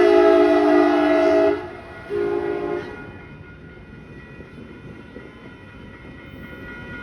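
Amtrak Blue Water passenger train's horn: a long chord-like blast that ends about a second and a half in, then a short blast, after which the train's running noise carries on more quietly.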